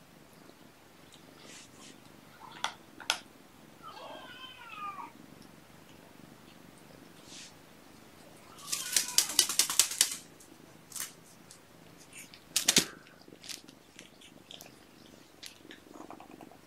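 A young kitten meows once about four seconds in, between scattered light taps and knocks of kittens playing with toys. Near the middle comes the loudest sound, a quick rattling run of clicks lasting about a second.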